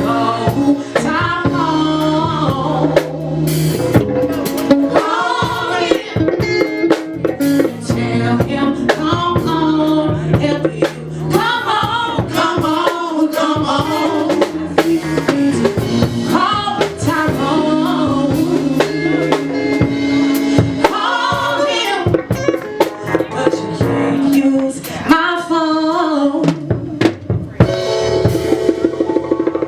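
Live band playing with a lead singer: sung vocal lines over drum kit, bass and keyboard, with congas among the percussion.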